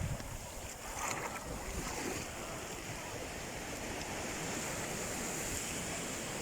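Sea waves washing on the shore, a steady rush of surf, with wind buffeting the microphone.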